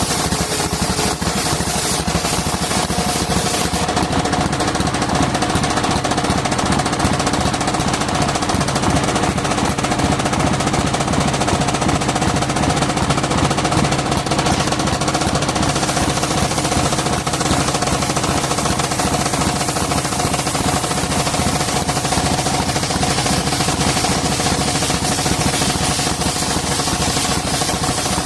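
Engine driving a sawmill's circular saw, running steadily with a fast, even knocking beat and a steady high tone over it.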